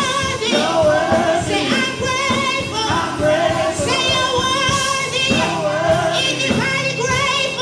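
Gospel song: sung notes held and wavering in pitch over band accompaniment with a steady beat.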